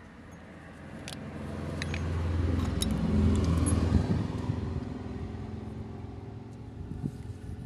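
A motor vehicle's engine sound that swells over a couple of seconds to its loudest around the middle, then fades slowly away. A few sharp clicks come in the first three seconds.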